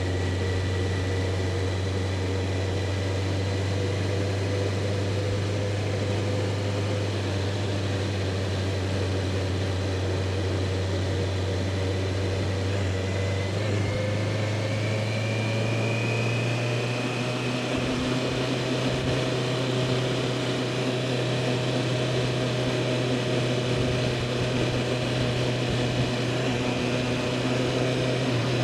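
2021 Honda CBR650R's inline-four engine running steadily on the move, its pitch rising a little about fourteen seconds in.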